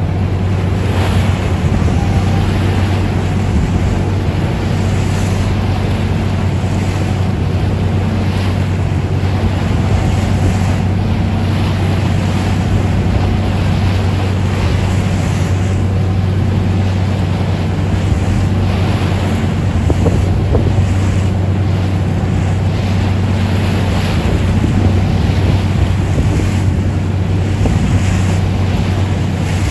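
A lobster boat's engine running steadily underway, a constant low hum, with wind gusting on the microphone and sea water rushing past the hull.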